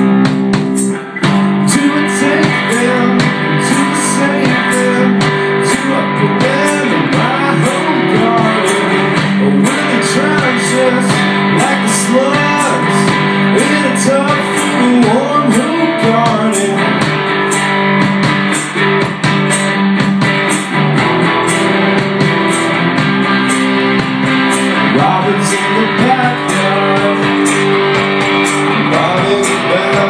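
Live music: an electric bass guitar with its strings struck by a drumstick in a steady rhythm, and a man singing over it.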